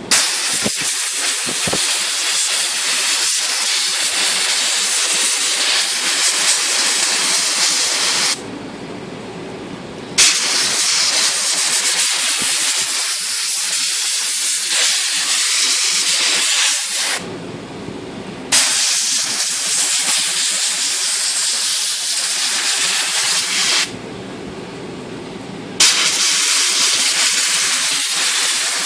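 Compressed air hissing from a blow nozzle in four long blasts of several seconds each, with short pauses between them. It is blowing the cleaning chemical and loosened grime out of a typewriter's key levers and comb.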